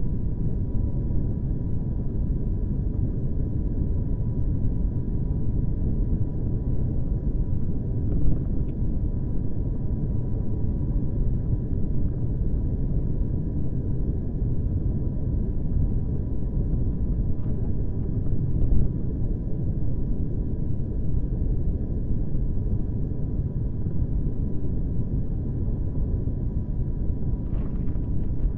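Car driving at a steady pace: continuous low road and engine rumble, with a faint steady high-pitched whine above it. Two brief knocks, about eight and nineteen seconds in.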